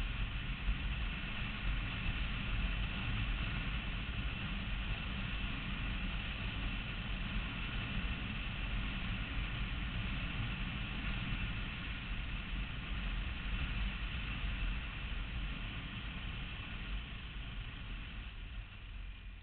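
Motorcycle under way at road speed: engine running steadily with wind and road noise rushing over the bike-mounted microphone, getting quieter over the last few seconds.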